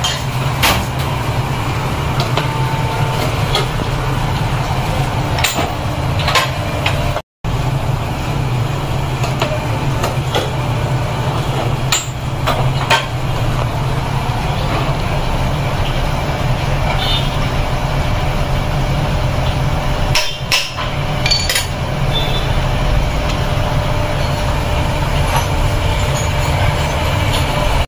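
Plastic injection moulding machine running: a steady low machine hum with scattered metallic clicks and knocks. The sound briefly cuts out about seven seconds in.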